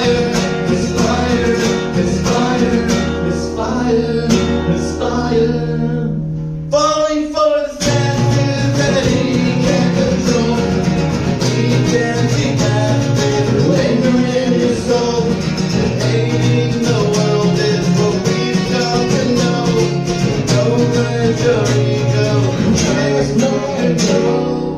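A band playing live, guitar-led, with singing. The music breaks off briefly about seven seconds in, then comes back in full.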